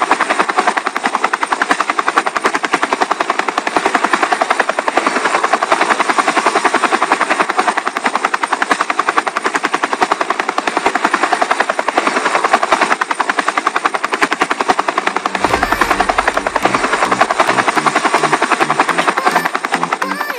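Two small DC hobby motors spinning the plastic rotor blades of a homemade cardboard model helicopter: a loud, steady, fast whirring rattle.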